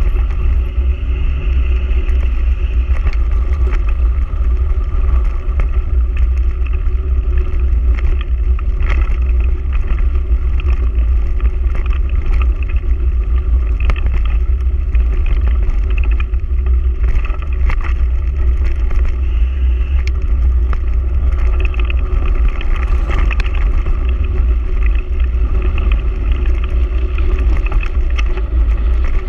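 Wind buffeting the microphone of a camera mounted on a bike moving fast down a gravel track. It is a loud, steady, heavy rumble, with scattered clicks and rattles from the tyres running over loose stones.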